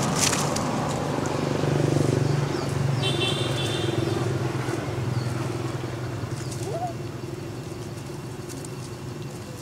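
A motor vehicle's engine running as it passes, a steady low hum that is loudest about two seconds in and then slowly fades. A brief high chirp sounds about three seconds in.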